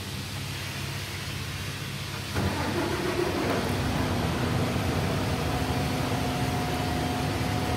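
Steady low machine hum. About two and a half seconds in it steps up louder, adding a fan-like rush and a steady whine.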